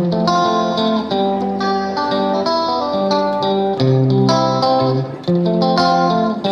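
Background music: a plucked guitar tune played at a steady pace.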